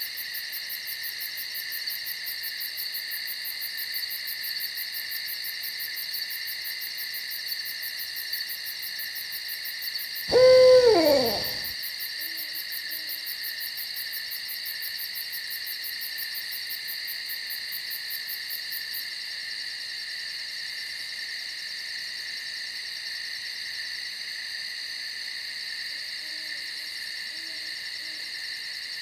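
Owl hooting: one loud call about ten seconds in that slides down in pitch, with fainter, shorter low hoots later. Under it a steady night-insect chorus with a fast high pulsing that drops out about two-thirds of the way through.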